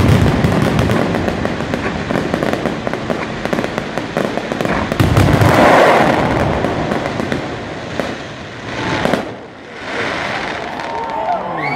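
Fireworks display: a dense stream of crackling bangs from many aerial shells at once, swelling louder about halfway through, then thinning out and dying away.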